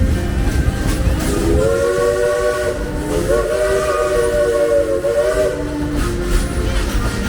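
Steam locomotive whistle sounding a chord of several notes for about four seconds, starting about a second in, over the steady low rumble of the moving train.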